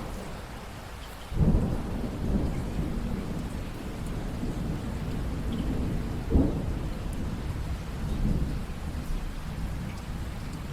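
Steady rain falling, with a roll of thunder breaking in suddenly about a second in and rumbling on. A sharper clap comes about six seconds in, and the rumble fades toward the end.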